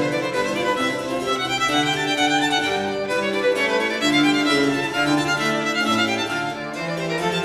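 Instrumental music led by a bowed violin playing a melody over lower sustained notes.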